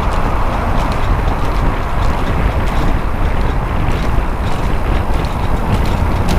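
Steady wind rushing over the camera microphone, with road rumble, while riding a road bike.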